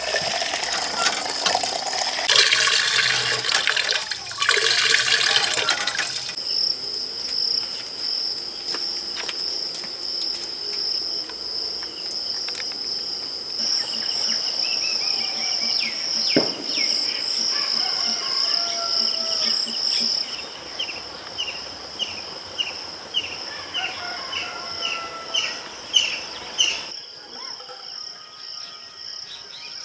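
Hand-lever tubewell pump being worked, water gushing out in noisy surges for about the first six seconds. After that a steady high insect drone carries on, with birds chirping in short falling notes, repeated and quickening in the second half.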